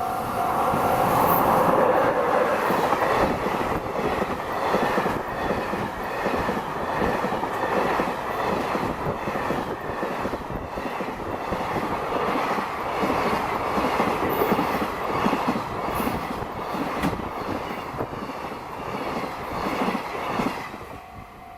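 JR Freight express container train rolling past at speed, its wheels clacking rapidly over the rail joints with a dense rumble, fading away near the end as the last wagons pass.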